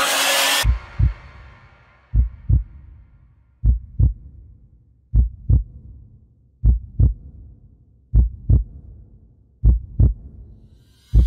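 Heartbeat sound effect: slow double thumps (lub-dub), one pair about every second and a half, after loud music cuts off less than a second in. A rising whoosh begins near the end.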